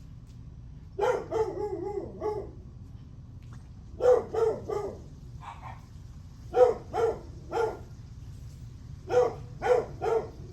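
A dog barking in bursts of two to four quick barks, the bursts coming every two to three seconds, over a steady low background rumble.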